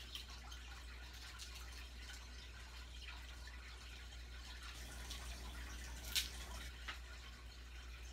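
Aquarium filter trickling and dripping over a steady low hum, with faint scattered ticks and one sharper click about six seconds in.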